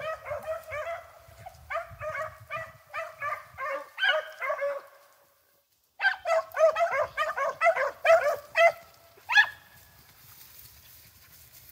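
A pack of rabbit hounds baying in chase, a rapid run of high yelps on the rabbit's track. It breaks off for about a second midway, picks up thick again, and trails away near the end.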